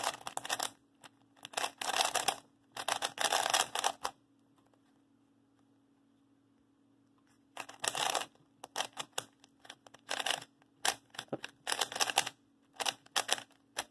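QiYi Sail W 3x3 speed cube being turned fast in a solve: bursts of rapid plastic clicking and clattering from the turning layers, broken by a pause of about three seconds near the middle. The cube is still dry, with barely any lube in it.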